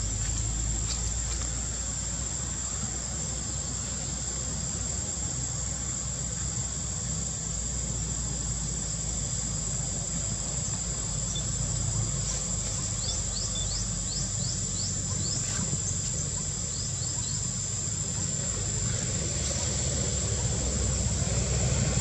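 Insects keep up a steady high-pitched drone over a low background rumble. Twice in the middle comes a quick run of short rising chirps, and the rumble grows louder near the end.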